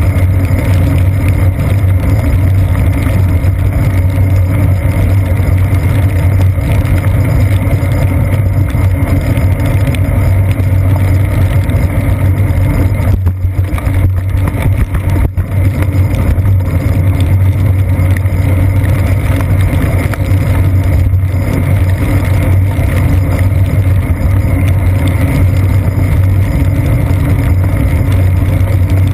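Steady, loud, muffled rumble of road vibration and wind from a bicycle rolling along wet pavement, picked up by a GoPro Hero 2 mounted on the seat post. The rumble dips briefly about halfway through.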